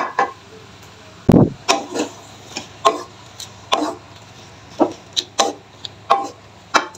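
Spatula scraping and knocking against a non-stick wok while stir-frying water spinach, short strokes about once or twice a second, with one heavier, deeper thump a little over a second in.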